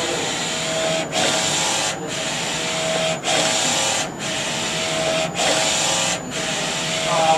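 NC-610A digital textile printer running, its print-head carriage sweeping back and forth across the flatbed about once a second with a steady whirr and a thin whine, dropping briefly at each reversal.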